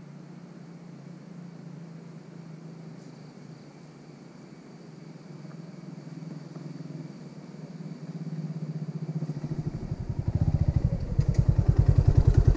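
Motorcycle engine idling with a steady low hum, then growing louder with a fast, even pulsing from about nine seconds in.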